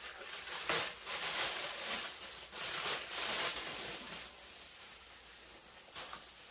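Bubble wrap and tissue paper rustling and crinkling as they are pulled off an electric guitar, louder in the first half and softer near the end.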